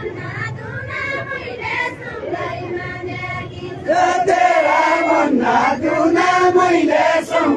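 A group of men and women singing a repeated, chanted refrain together as they dance in a line, the singing growing louder about four seconds in.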